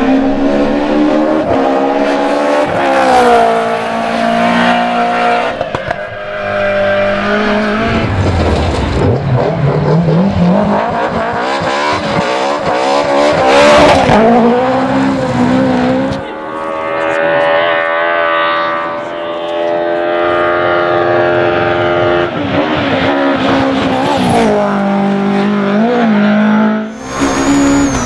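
BMW M3 E30 rally car's four-cylinder engine revving hard as it drives past, its pitch climbing and falling over and over as it accelerates, shifts gear and lifts off for corners.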